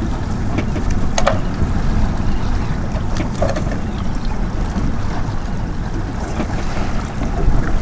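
Fishing boat under way at sea: a steady low rumble of motor, wind and water, with a couple of brief knocks.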